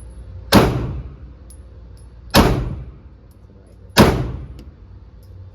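Three gunshots from a Glock pistol, fired singly and spaced about a second and a half to two seconds apart, each with a short echoing tail.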